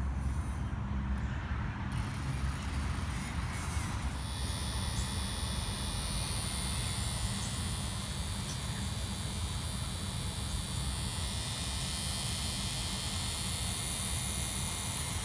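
Small electric motor of a homemade finger-tickler gadget running with a steady hum, a thin high whine coming in about four seconds in.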